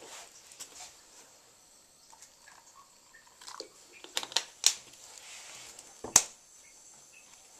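Scattered small clicks and rustles of someone moving about and handling things, with one sharp click about six seconds in.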